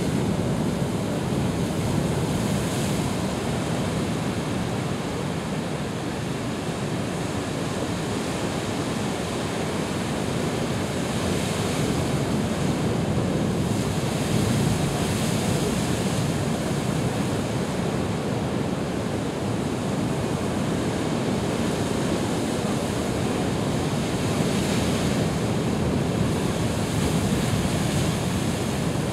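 Heavy ocean surf crashing against a rocky shoreline: a continuous rush of churning water that swells louder several times as individual waves break and throw up spray.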